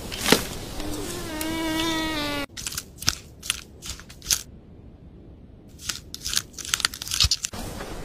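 An Asian elephant gives one drawn-out call of steady pitch for about a second and a half, cut off sharply. A run of irregular sharp crunches and clicks follows, from a guinea pig on dry wood-shaving bedding.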